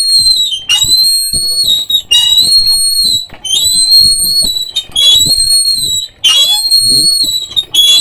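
A loud, shrill whistle-like tone, repeated over and over in notes about a second long with short breaks between them, each note bending slightly in pitch as it starts.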